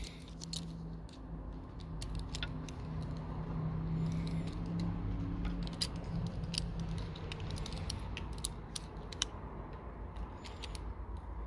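Hex key turning in the cable pinch bolt of a SRAM NX rear derailleur to clamp the tensioned shift cable: scattered small metallic clicks and taps, over a steady low hum.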